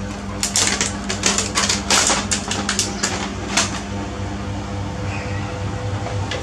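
Quick, irregular clicks and rattles of a plastic baby walker as a kitten and a young macaque scramble about in it, thickest in the first half, over a steady low hum.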